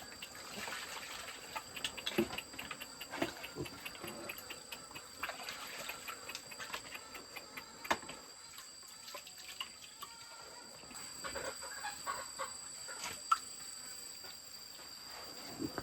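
Chickens clucking among scattered small clicks and rustles, over a steady high-pitched insect drone.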